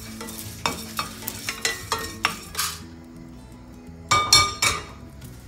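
Cardamom pods being dry-roasted in a stainless steel pan, stirred with a spatula: the pods rattle and the spatula scrapes and taps against the pan in sharp strokes. A little after four seconds a steel dish clinks with a short ring.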